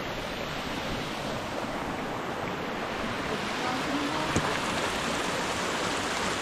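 Steady rushing of running water, like a fast stream or beck, with one brief knock about four seconds in.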